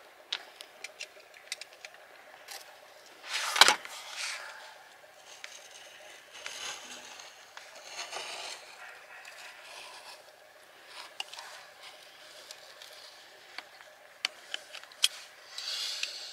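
Hand work on a boat fitting: intermittent scraping and rubbing with scattered small clicks and taps, and one sharp knock about three and a half seconds in.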